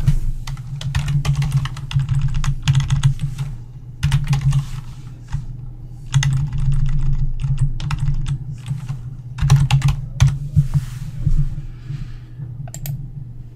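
Typing on a computer keyboard: irregular runs of keystrokes with short pauses, over a steady low hum.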